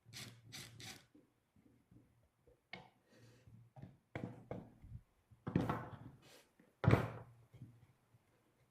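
Wooden pieces, likely the bench's cedar boards, being handled: a string of sharp wooden knocks and short scrapes, three quick ones at the start and the loudest about seven seconds in.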